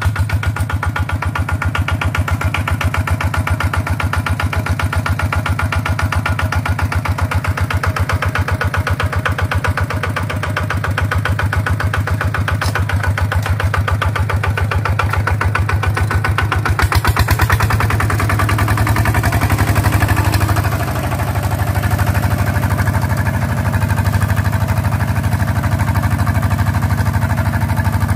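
Kubota single-cylinder diesel engine on a walking tractor running with a steady, even chug while the tractor is driven along in first gear. About 17 seconds in, it gets louder and harsher.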